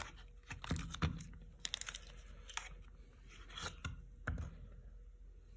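Short, sharp clicks and scraping of a rebuilt Mercedes trunk lock cylinder being handled and worked on a bench, spaced irregularly about once a second. The tumbler is a little tight.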